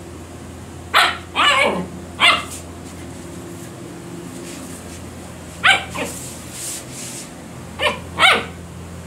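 German Shepherd puppy barking: about seven short barks in three quick groups, one of them trailing down in pitch. The puppy is barking up at a green bottle held over it.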